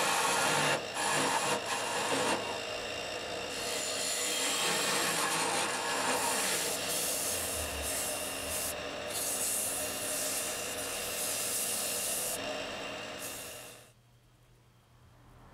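Wood lathe spinning a wooden bowl, a turning tool cutting at its base for the first second, then sandpaper held against the spinning wood with a steady rasping rub. The sound stops abruptly about a second before the end.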